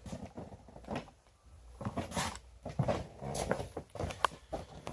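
Quiet, irregular swishes and light knocks of paint being dry-brushed on a chair and the brush being handled, with one sharper click about four seconds in.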